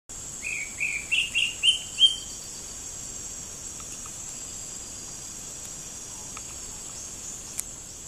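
A bird gives six short, rising chirps in quick succession, loud and close, each a little higher than the last. Under them a steady, high-pitched insect drone runs on throughout.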